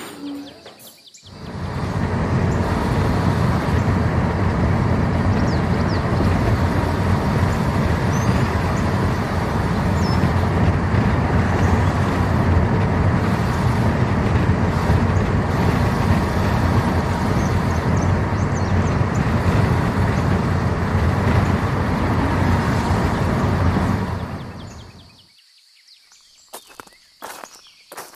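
A loud, steady rushing noise, heaviest in the low end, cuts in about a second in and dies away near the end. It is followed by a few footsteps.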